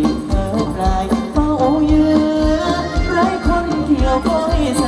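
Live band playing Thai ramwong dance music: a steady drum beat, about two to three strokes a second, under a gliding melody line.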